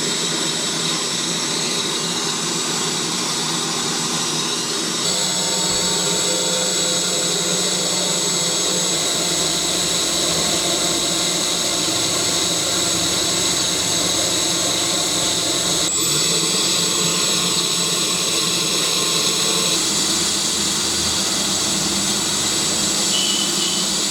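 A small high-speed electric fan motor, the 'turbo jet' blower of a home-made air cooler, running steadily with a whirring rush of air. Its tone shifts slightly about five seconds in and again near the end, and there is a single sharp click about two-thirds of the way through.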